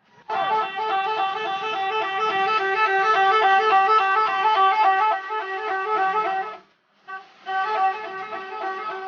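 Bus "telolet" horn: a multi-tone horn playing a quick alternating tune. It sounds for about six seconds, breaks off briefly, then starts the same tune again.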